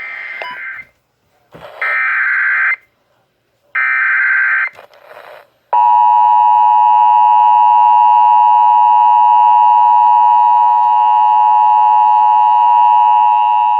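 Emergency Alert System header: the end of one short digital data burst, then two more bursts of about a second each, a second apart. About six seconds in, the steady two-tone EAS attention signal starts and holds for about eight seconds, marking the start of a new alert broadcast.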